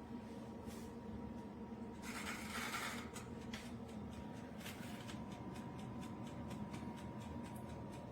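Countertop convection oven running with a steady low hum, with faint scattered clicks and a brief hiss about two seconds in.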